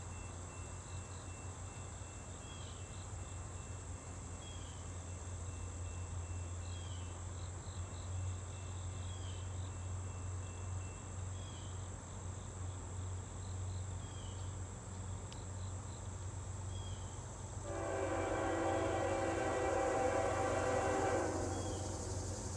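A diesel freight locomotive's air horn, heard from a distance, blows one long chord about eighteen seconds in and holds for about four seconds. Before it, insects buzz steadily over a low, steady rumble, and a short chirp repeats every second and a half or so.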